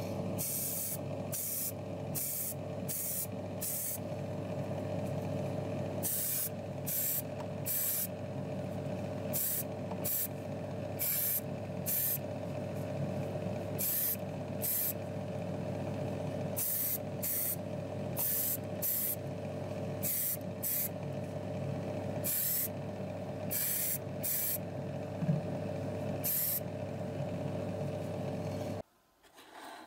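Paint being sprayed onto a small resin model part in short, repeated hissing bursts, about one a second, over a steady motor hum that cuts off near the end.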